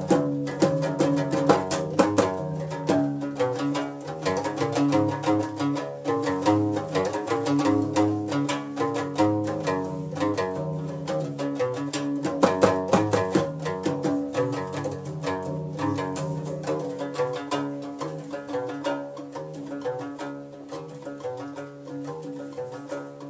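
Guembri (sintir), the three-string bass lute with a skin-covered box body, played solo: a busy, repeating pattern of sharp plucked notes over low sustained notes, slowly getting quieter toward the end.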